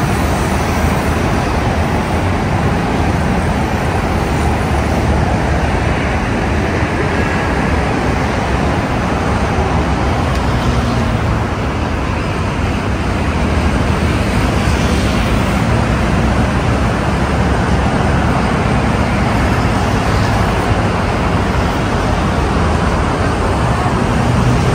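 Steady road traffic noise from a busy multi-lane city avenue below, cars and motorbikes passing continuously.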